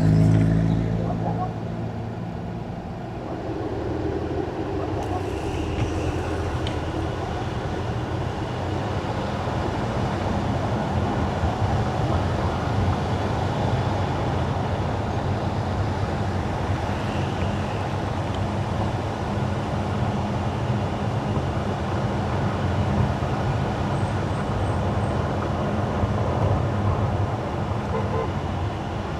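Car driving on wet winter asphalt: a steady hiss of tyres on the wet road over a low road rumble, with a louder swell right at the start.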